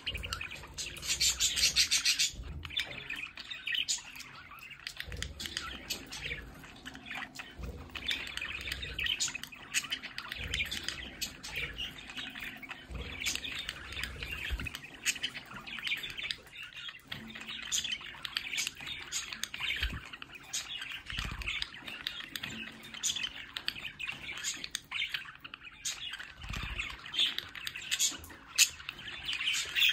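Budgerigars chattering continuously, a busy mix of warbles, chirps and squawks, loudest in a burst about a second in.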